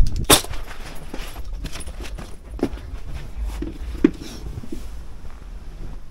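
Handling noise: a sharp knock just after the start, then rustling of clothing and a couple of single thuds as someone walks in and sits down holding the camera.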